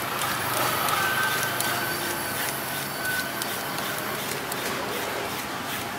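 A Y-peeler scraping the skin off a green mango in repeated strokes, over steady outdoor street noise. A held tone runs for about two seconds, starting about a second in.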